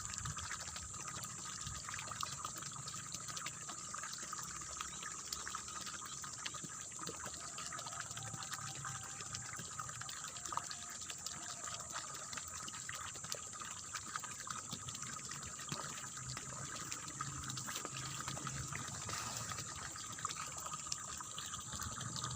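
Water splashing and trickling steadily through a rice-field channel, an even, continuous babble with a steady high hiss over it.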